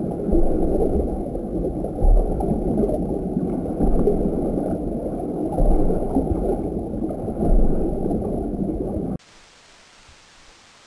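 Ocean sound effect: a low rushing, gurgling wash of water noise that swells about every two seconds. It cuts off suddenly about nine seconds in.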